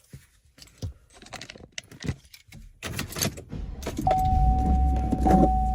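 Keys jangling with scattered clicks and handling sounds. About four seconds in, a low steady rumble starts, joined by a single steady tone.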